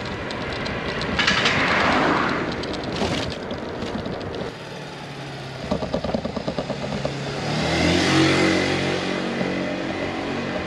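A car going past a bicycle on the road, with wind on the microphone and the bike clattering over the road surface. About three-quarters of the way through, a steady low engine drone sets in.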